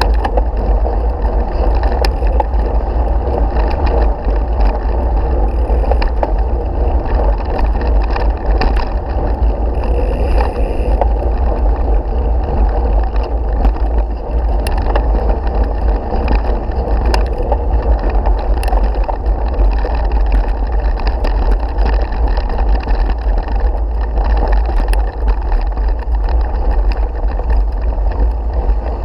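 Steady low rumble of a mountain bike being ridden over a gravel track, picked up by a bike-mounted action camera in its case, with wind on the microphone and scattered clicks and rattles from the bike.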